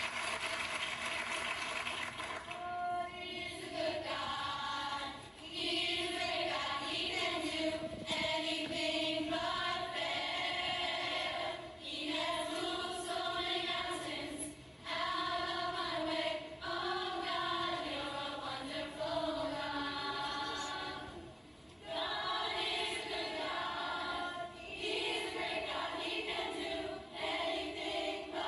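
Gospel choir of young women's voices singing together in sustained phrases, with short breaks between phrases.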